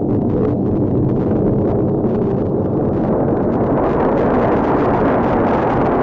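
Northrop F-5E jet fighters flying past in formation, the steady noise of their twin turbojet engines. The sound grows brighter and hissier in the second half.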